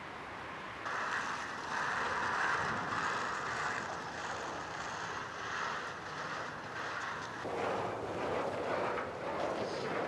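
Steady rushing ambience of wind and traffic on a suspension bridge walkway, starting abruptly about a second in; the rush turns lower in tone near the end.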